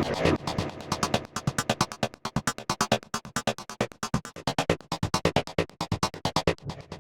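Electronic music loop playing, built from rapidly chopped slices of a single audio sample, giving a fast stuttering rhythm of short slices.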